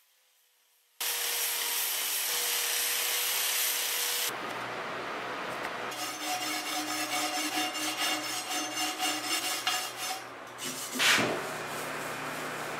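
A shop vacuum switches on about a second in and runs steadily while debris is cleaned off the stove's rusty cast-iron ledge. Partway through, a scraper blade rasps along the metal in quick repeated strokes, and there is a sharp knock near the end.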